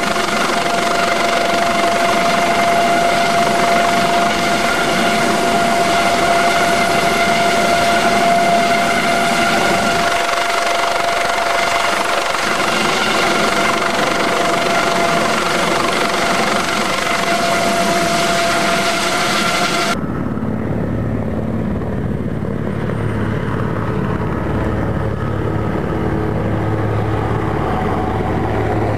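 An Aérospatiale Dauphin II helicopter hovering close by, its rotors and twin turbines running with a steady high whine. About twenty seconds in the sound cuts to an Aérospatiale AS332L Super Puma flying low past, a deeper steady rotor drone.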